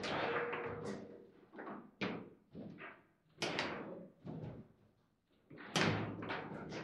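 Table football in play: a string of sharp knocks and clacks as the hard ball is struck by the figures and bangs against the table walls, with the rods knocking, the loudest bang about six seconds in.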